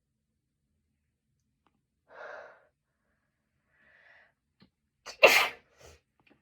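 A single loud, sharp sneeze about five seconds in, preceded by a short breath about two seconds in. It is the sneeze finally coming after a long, frustrated build-up of trying to sneeze.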